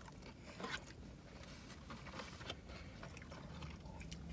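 Faint chewing and biting of chicken nuggets, with a few soft crunches and mouth clicks scattered through.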